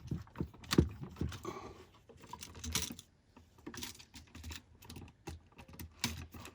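Irregular light clicks and taps of a screwdriver and bare copper wire being worked at the ground terminal screw of a GFCI receptacle, the sharpest click a little under a second in.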